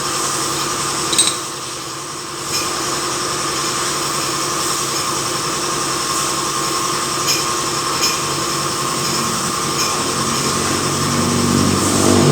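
A machine running steadily with a drone made of several held tones, broken by a few sharp clicks and a short dip in level near the start.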